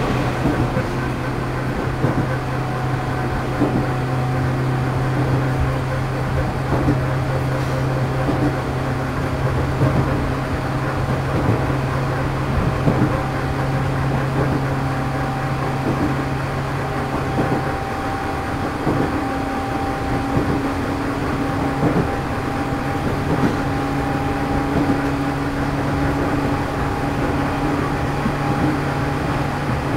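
JR East 211 series motor car MoHa 211-1 running at speed: its traction motors, fitted with external cooling fans, give a steady low hum, with short clicks of the wheels over the rails. The hum drops away about 18 s in and comes back about 22 s in. This car is one known for an abnormal motor noise.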